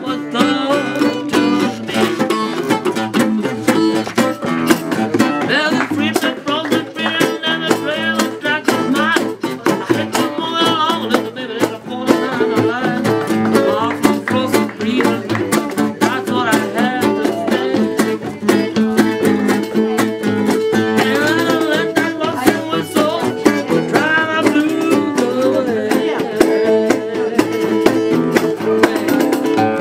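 Acoustic gypsy-style jam: a nylon-string acoustic guitar strummed and picked fast over a hand-played frame drum, with a voice singing along at times.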